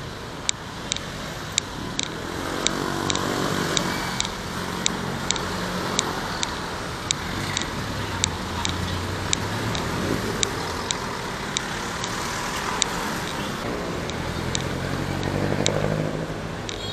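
City street traffic: a steady road hum, with two motor vehicles passing close by, one about two seconds in and a louder one near the end. Throughout there is a sharp tick about twice a second, in step with walking.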